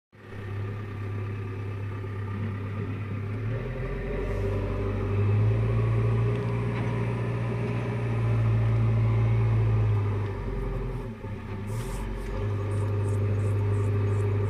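JCB 3DX backhoe loader's diesel engine running with a steady low drone. It grows louder about five seconds in, drops briefly around eleven seconds, then picks up again.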